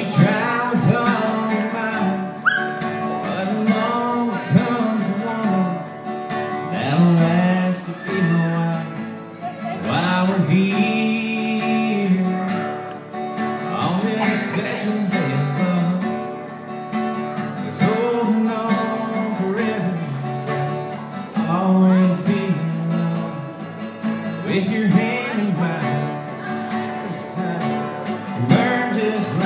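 Live country song: a man singing into a microphone while playing an acoustic guitar, with a second guitar playing along.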